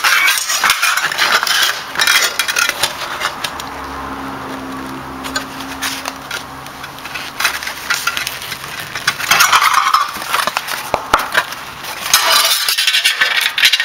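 Thin aluminium flashing being bent and handled by hand, crinkling and clattering in a long run of sharp clicks and scrapes.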